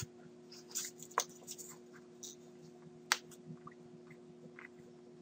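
Scattered faint clicks and taps of a computer keyboard and mouse in use, the sharpest click about three seconds in, over a steady low electrical hum.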